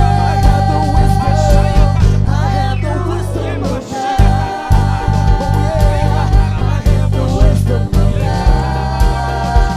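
Gospel worship music: a voice holds long notes with vibrato over a steady bass and regular beat, with three held phrases, at the start, about four seconds in, and near the end.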